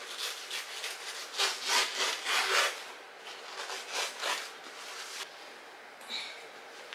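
Scissors cutting through fabric: a run of rasping snips with cloth rustling, loudest in the first half, then quieter rustling after about five seconds.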